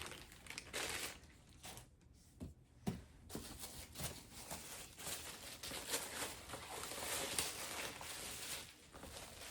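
Plastic packaging being torn open and crinkled by hand, an uneven rustling with a few sharp crackles.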